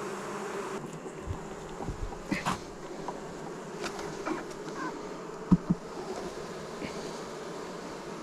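A honeybee colony buzzing steadily in an opened hive, with a few light knocks and clicks, the loudest a pair of knocks about halfway through.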